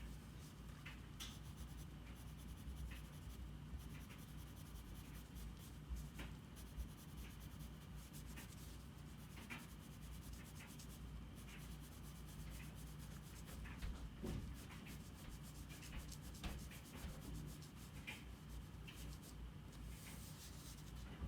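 Faint scratching and rubbing of a drawing tool on paper, in irregular strokes with small ticks, over a low steady hum.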